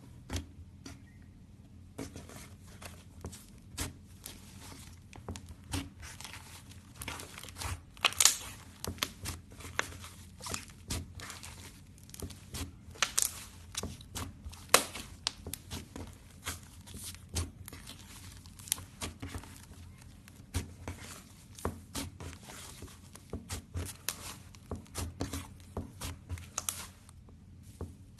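Slime being squeezed and worked by hand, giving a dense, irregular run of sticky pops and crackles, several a second. It starts about two seconds in and stops shortly before the end.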